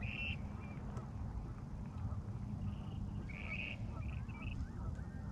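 Wind rumbling on the microphone, with short bird calls several times, some of them paired.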